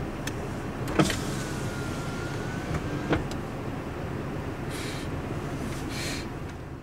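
Car engine idling, heard from inside the car as a steady low rumble, with two sharp knocks about one and three seconds in.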